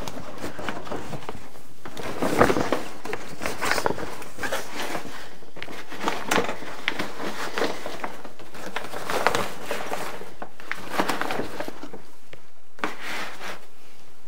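Crinkling and rustling of a soft 3D printer enclosure's foil-lined fabric as a rod frame is worked down into its corners. It comes in irregular bursts and dies away near the end.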